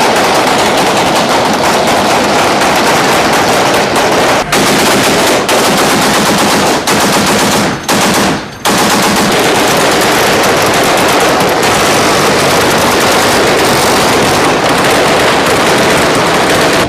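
Continuous rapid automatic gunfire, long bursts with only a few brief breaks, loud.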